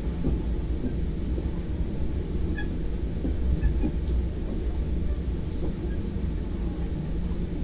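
Steady low rumble of a Virginia Railway Express Gallery IV bilevel passenger car rolling along the track, heard from inside the car's upper deck. A few faint, short high squeaks come through about midway.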